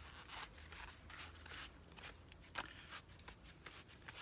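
Faint rustling and a few light clicks and knocks, as of gear being handled.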